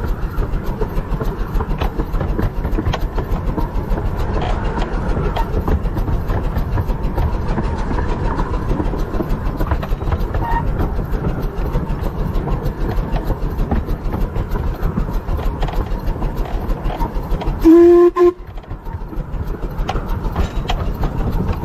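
A 15-inch-gauge steam train hauled by the locomotive River Mite running along the line: a steady rumble of wheels on rail with frequent clicks. Near the end the locomotive gives one short blast of its steam whistle, the loudest sound here.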